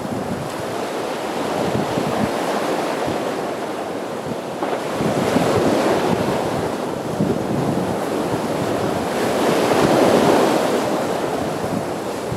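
Atlantic surf breaking against boulders on a rocky shore: a continuous rushing wash that swells louder as waves land about five seconds in and again about ten seconds in.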